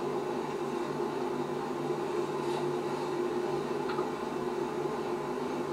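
Steady low hum with a faint hiss, room tone in a quiet enclosed room, with two faint ticks about two and a half and four seconds in.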